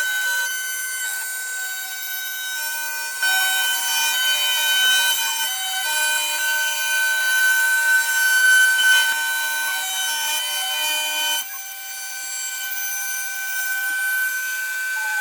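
Sienci CNC router cutting wood, its spindle whining steadily while the stepper motors' tones rise and fall as the axes move. The sound gets louder about 3 seconds in and drops back about 11 seconds in.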